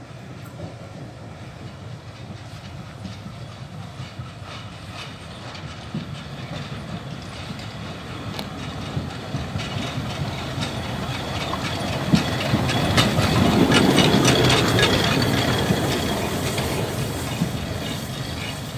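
A narrow-gauge steam locomotive running light past, with a rumble and wheel clatter over the rail joints. It grows louder as it approaches, is loudest as it passes about 13 to 15 seconds in, then fades as it moves away.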